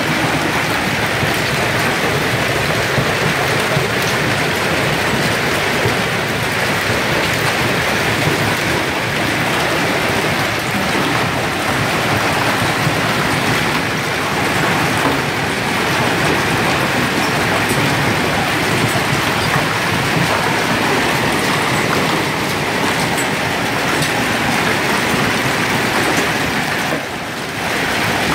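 Hail pelting cars: a steady, dense clatter of countless hailstones striking car bodies and the ground.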